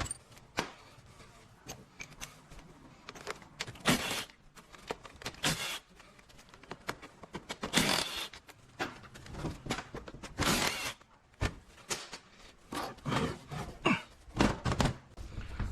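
Hand and power tools working bolts off a transmission's overdrive housing: scattered metal clicks and clinks with a few short rattling bursts, each under a second.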